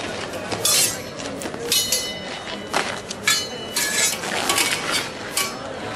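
Steel swords clashing against each other and against a round metal buckler in a sword-and-buckler bout: a quick, irregular series of metallic clangs and clinks, some ringing on briefly.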